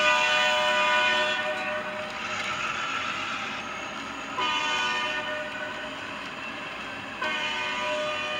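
Model Norfolk Southern diesel locomotive's electronic horn sounding over the rumble of the freight train running on the track. One long blast fades out about two seconds in, a second starts a little past halfway, and a third starts near the end.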